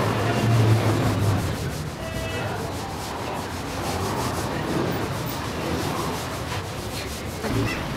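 Street ambience: a steady noisy background with a low hum that swells about a second in and then settles.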